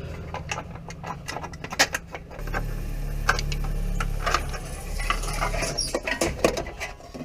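Metal hand tools and parts clinking and clattering in irregular clicks during hand work on the exhaust manifold bolts, with a low hum for about three seconds in the middle.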